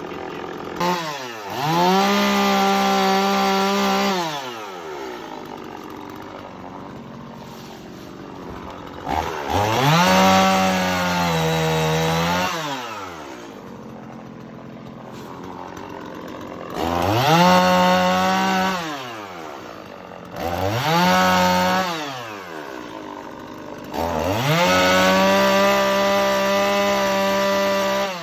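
Gasoline chainsaw revved to full speed five times to cut firewood, dropping back to idle between cuts. Its pitch sags under load during the longer second cut.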